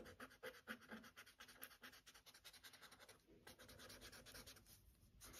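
Faint, quick scratching strokes of a soft charcoal pencil on paper as a drawing is shaded, with a brief pause a little past three seconds in.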